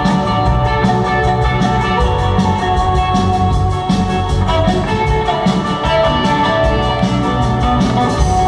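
Live rock band playing loudly, electric guitar over a drum kit, heard from among the crowd in an arena.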